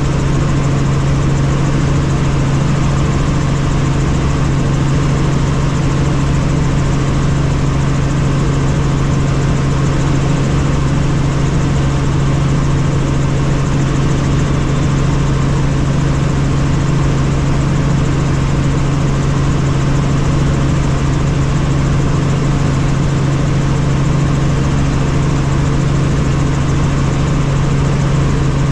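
Helicopter in flight heard from inside the cabin: a loud, steady drone of engine and rotor with a strong low hum, unchanging throughout.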